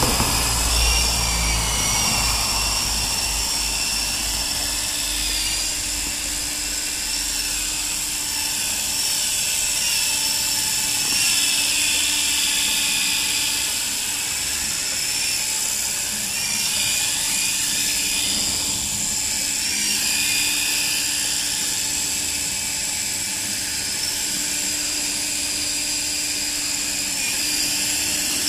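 Volitation 9053 coaxial RC helicopter's small electric motors whining and its rotor blades buzzing in flight, the pitch wavering up and down as the throttle changes. A low rumble sits under it for the first few seconds.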